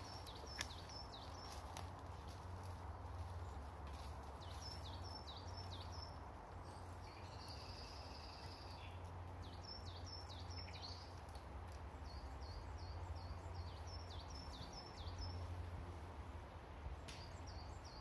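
Woodland songbirds singing: short high phrases of a few quick down-slurred notes, repeated every second or two over a steady low background hiss.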